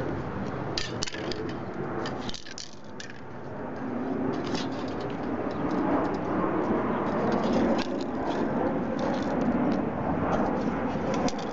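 Sheets of paper being handled and laid flat on a cloth-covered surface: rustling and crinkling with many scattered small clicks, over a steady low background noise.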